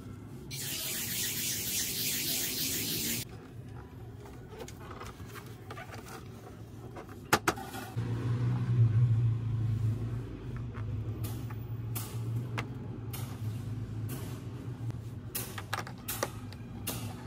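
A sponge eraser rubbing across a chalkboard slate for about three seconds, then scattered plastic clicks and taps from the magnetic drawing board and its stamps, over a steady low engine hum from about eight seconds in.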